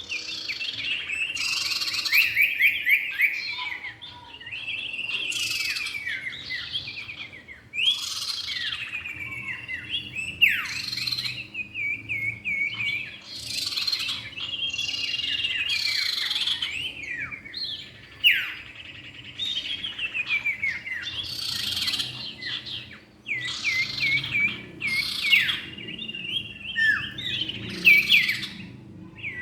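Common ioras (cipow) singing and calling, male and female: quick repeated chirping phrases and falling whistles, with brief pauses between phrases.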